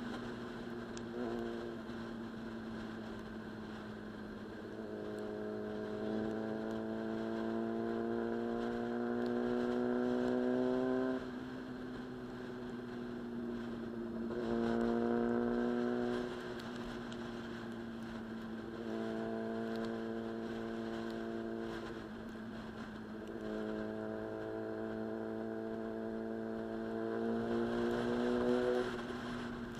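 Inline-four sport motorcycle engine running at road speed. Four times the pitch climbs slowly and the sound grows louder as the throttle is rolled on, then drops back suddenly as it is eased off.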